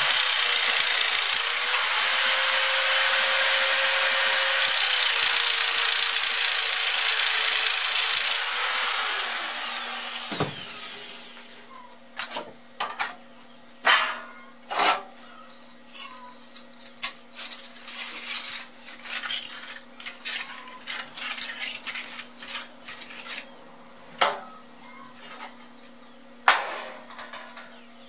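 Hand-held angle grinder running against a thin steel plate for about ten seconds, then winding down. A thud follows, then scattered clinks and knocks of metal being handled.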